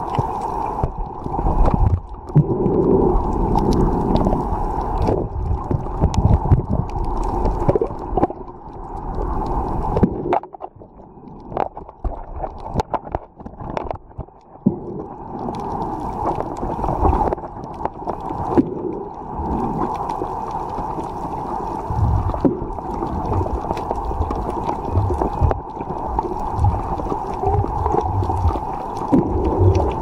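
Underwater sound picked up by a submerged camera: a steady muffled rush with a constant hum and low thumping surges of water movement. About a third of the way in it drops quieter for a few seconds, with scattered sharp clicks.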